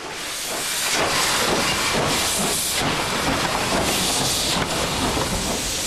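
Beyer Peacock Garratt steam locomotive venting steam beside its cylinders and wheels, a loud continuous hiss that builds over the first second and then holds steady.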